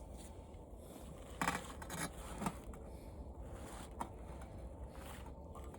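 Faint handling noises: a few short scrapes and rustles, and one sharp click about four seconds in, over a steady low hum.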